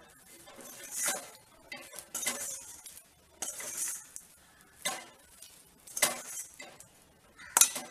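Long metal spoon scraping and clinking against a stainless steel kadai while stirring ragi flour into hot water to make a stiff dough: about one scraping stroke a second, with a sharp clink near the end.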